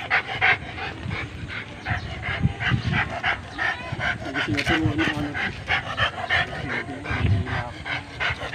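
A Belgian Malinois panting rapidly and steadily, about three or four breaths a second.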